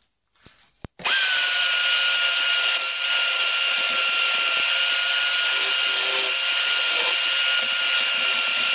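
A drill powering a homemade mini lathe switches on about a second in and runs at a steady speed with a constant high whine, while a hand file scrapes the spinning horn ramrod tip.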